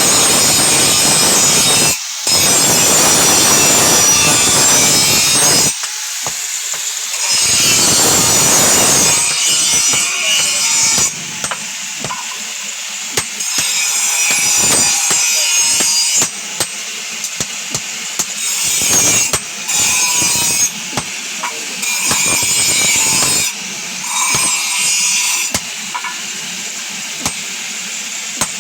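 A power tool working steel in repeated bursts of a few seconds each, with short pauses between them. Scattered clicks and knocks from handling the metal fall in the gaps.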